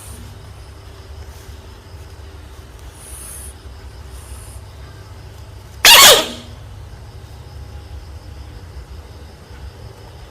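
A frog's distress scream: one loud, short squeal about six seconds in that falls in pitch, over a low steady hum.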